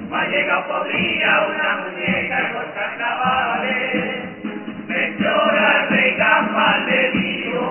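Chirigota of men singing together in chorus, with a regular beat about once a second under the voices.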